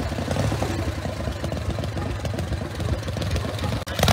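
Motorcycle engine idling steadily, with a brief drop in level near the end.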